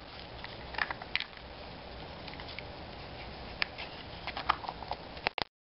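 Small plastic surprise egg being handled and pried open by hand: scattered light clicks and taps of plastic, more of them in the second half, cutting off suddenly near the end.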